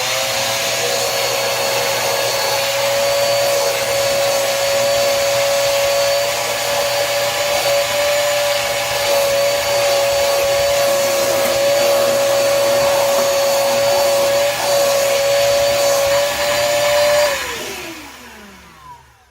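Koblenz 2.5-gallon wet/dry shop vacuum motor running with a steady high whine and rushing air. It is switched off about 17 seconds in, and the whine falls in pitch as the motor spins down.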